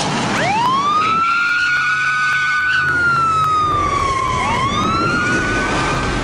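Police car siren wailing: its pitch rises quickly, holds, slides slowly down, then rises again about four and a half seconds in.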